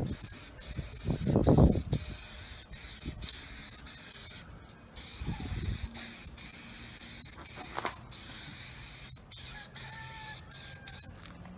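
Aerosol spray paint can hissing in a string of short sprays, with brief gaps between them. A low rumble comes about a second in, with another just before six seconds.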